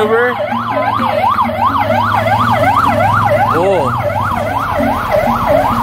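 Emergency vehicle siren sounding a fast up-and-down wail, about four sweeps a second, over a low steady hum.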